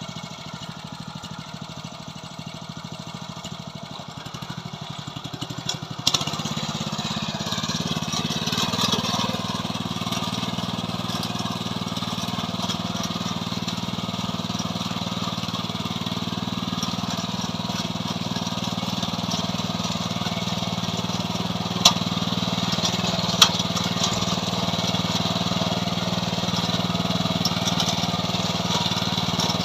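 KB-365 mini tiller's small engine idling with a pulsing beat, then about six seconds in it speeds up and runs steadily at a higher speed and louder. Two sharp clicks sound near the end.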